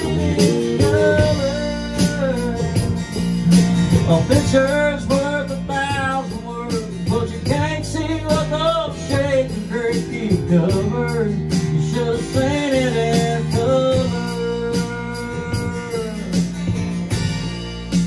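Live country band music: a man singing over strummed acoustic guitar, electric bass and a drum kit. The voice holds its last notes and drops out near the end while the instruments play on.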